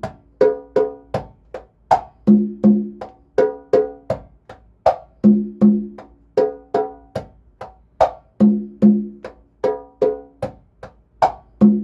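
A pair of congas played by hand in the bachata majao pattern: heel, fingertip and muffled slap strokes on the higher drum, then two open strokes on the low drum. The cycle repeats steadily about every three seconds.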